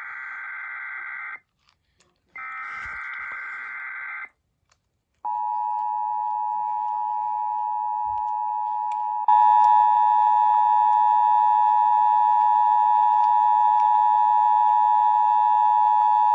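Emergency Alert System alert tones: two harsh buzzing bursts of digital header data about two seconds each with a second of silence between them, then a steady electronic attention tone near 1 kHz that jumps louder and fuller about nine seconds in.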